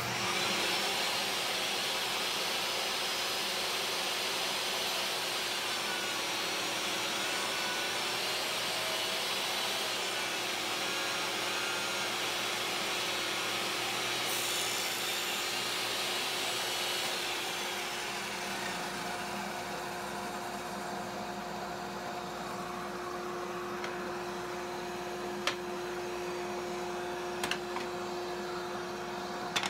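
Table saw ripping a birch board lengthwise, the blade cutting with a steady hiss over the motor's hum. The cutting noise eases off about 17 seconds in, and the saw runs on with a steady hum; a couple of light knocks come near the end.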